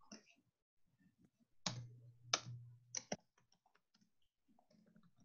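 Typing on a computer keyboard: four sharp key clicks in the middle of the stretch, among fainter scattered taps.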